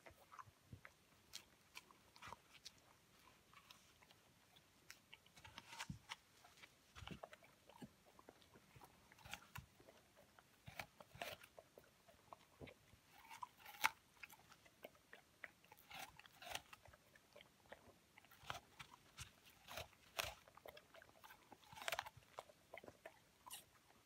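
A seven-month-old Hamiltonstövare puppy biting and chewing a whole apple, with irregular crisp crunches every second or so; the sharpest bite comes about 14 seconds in.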